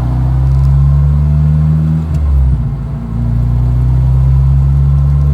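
Honda RSX's four-cylinder engine running under way. Its note holds steady, dips and changes about two seconds in, then settles again about a second later.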